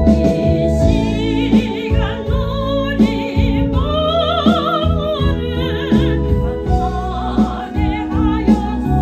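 Solo classical-style singing of a gospel hymn with wide vibrato over sustained keyboard chords, with a long held note around the middle.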